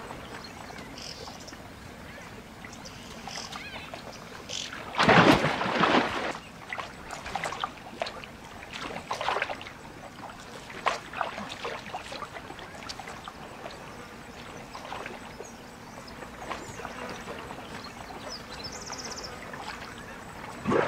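Waterhole ambience: a steady outdoor background with faint high chirps now and then. About five seconds in, a loud rushing burst lasts over a second, followed by a few seconds of scattered short sharp sounds.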